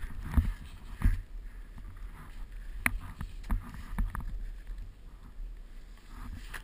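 Skis ploughing through deep powder snow: a steady low rumble broken by irregular knocks and thuds as the skis push and bounce through the snow.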